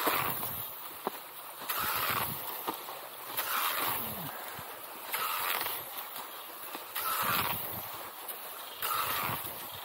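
A cross-country skier's classic stride on packed snow: skis gliding in the tracks and poles planting, a rhythmic swish about every second and a half to two seconds, with a few short crisp clicks in between.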